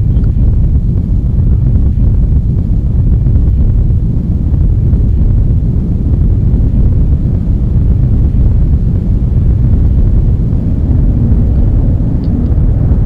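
Loud, steady low rumble with no clear pitch or rhythm, a dark droning soundscape.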